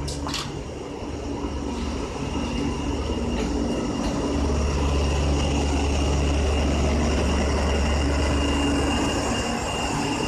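Two SNCF BB 67400-class diesel locomotives coupled in multiple passing close by, their diesel engines running with a steady low drone that grows louder about four seconds in as they draw level. A thin, steady high wheel squeal runs over it, and there are two sharp clicks at the very start.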